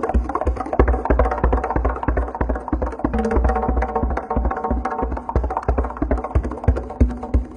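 Fast, machine-like drumming: rapid, even strokes with deep low beats several times a second, along with some sustained pitched tones.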